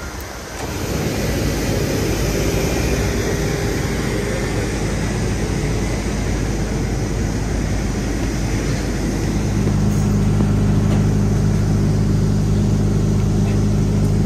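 Airport apron noise: a steady mechanical rush, joined about nine seconds in by the low, even drone of an apron bus's engine idling.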